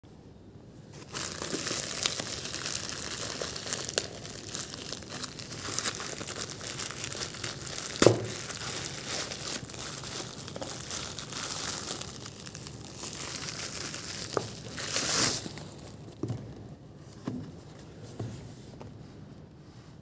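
Plastic mailer bag crinkling and tearing as it is ripped open by hand, with a sharp snap about eight seconds in and a louder rip around fifteen seconds. It eases off into a few light knocks near the end.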